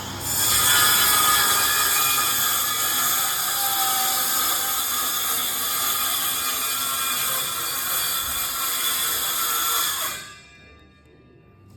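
A power tool running steadily for about ten seconds, then stopping suddenly.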